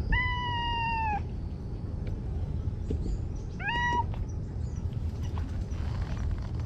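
A stray cat meowing twice: a long meow lasting about a second that sags slightly in pitch, then a short meow that rises and holds about three and a half seconds in. A steady low rumble sits underneath.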